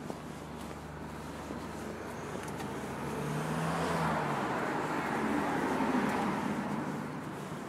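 A car driving past on the road: tyre and engine noise builds, is loudest in the middle, and fades away near the end.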